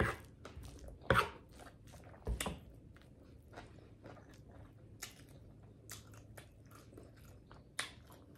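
Close-up eating sounds: chewing and lip smacking on a mouthful of chicken Alfredo ramen noodles, a quick run of wet clicks with a few louder smacks about a second in, a little after two seconds, and near the end.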